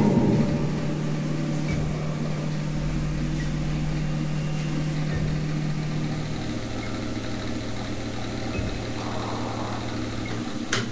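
Low steady drone of a horror film soundtrack, dropping to a lower pitch about six seconds in, with a sharp hit near the end.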